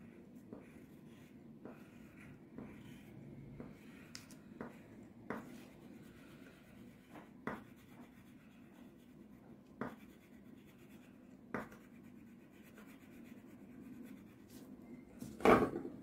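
A red wax crayon scribbling and scratching on paper on a tabletop, with scattered small taps every second or two over a faint steady hum. A louder bump and rustle comes near the end.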